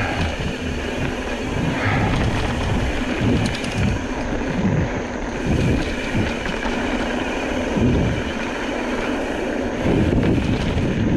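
Mountain bike ride heard from a bike-mounted camera: wind rushing over the microphone and tyres rolling on a dirt trail, with occasional low thumps as the bike goes over bumps.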